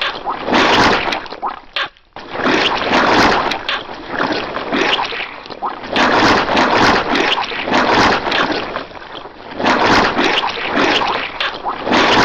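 Wet squelching, squashing sound effect, repeating in dense noisy stretches of a couple of seconds with brief dips between them.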